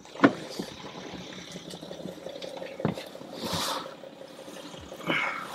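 Two sharp knocks, then rustling, shuffling and soft clicks as a person climbs into the driver's seat of a parked car.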